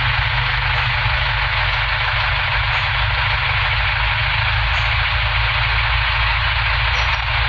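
BS-IV diesel engine of an SML Samrat GS tipper truck idling steadily, heard from inside the cab as an even low rumble with a hiss over it.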